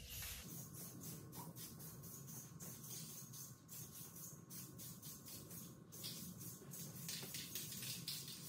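Aerosol can of clear coat spraying onto a headlight lens: a faint hiss that flutters rapidly.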